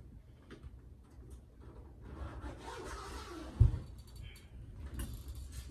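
Rubbing and scraping handling noises that build for a second or so, then a single dull thump about two-thirds of the way through, with a few light clicks after it.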